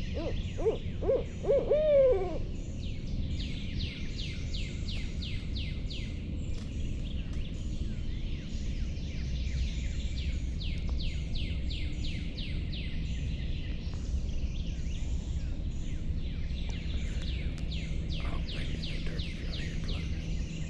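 A series of about six owl hoots, growing louder and ending in a longer, loudest hoot. From about three seconds in, quick high chirps come in repeated runs over a low steady hum.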